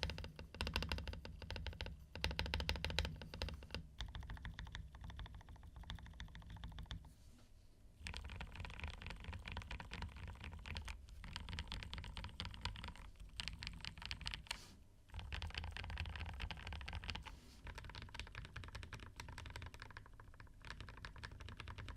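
Typing on an Akko 5075S VIA mechanical keyboard: fast runs of keystrokes with brief pauses, about 7 s, 15 s and 20 s in. The switch stems and stabilizers are lubed with Krytox 205g0, and the board has the band-aid mod.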